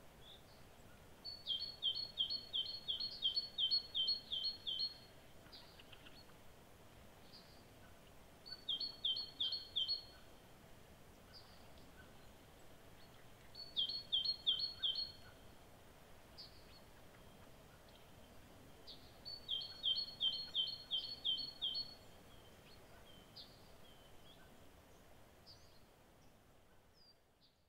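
A songbird singing four phrases of quick, repeated high notes, each note dipping in pitch, about three a second. Faint single chirps from other birds fall between the phrases over a low, steady outdoor hiss.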